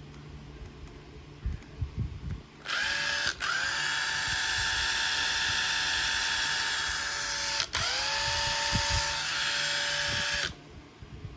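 Makita TD171D 18V brushless impact driver running free with no load: the motor whines up to speed about three seconds in, stops for a moment, runs steadily for about four seconds, then cuts out and spins up again, stopping near the end.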